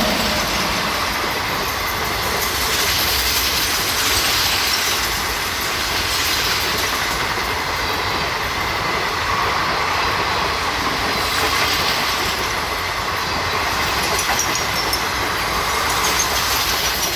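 Train running along the track: a steady, loud noise of wheels on rails, with a few faint high squeals near the end.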